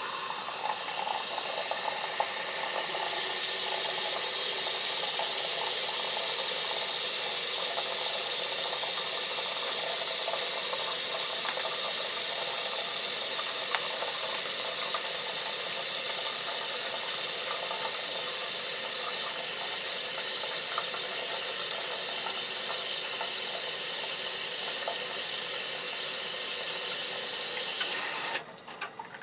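Schaerer Coffee Factory espresso machine's milk system running its rinse cycle: steam and water hissing steadily through the milk foamer and spout. It builds over the first few seconds and cuts off abruptly near the end.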